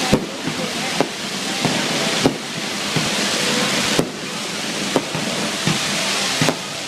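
Fireworks going off: a string of sharp bangs, about one every half second to second, over a dense, steady crackling hiss.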